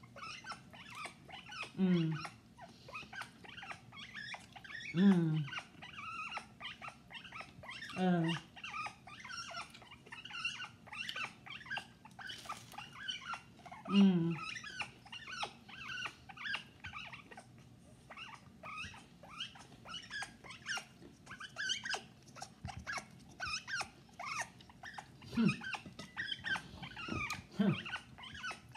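African grey parrot chattering in a run of quick high chirps and clicks, broken by short, low calls that fall in pitch, five loud ones every two to three seconds at first and two fainter ones near the end.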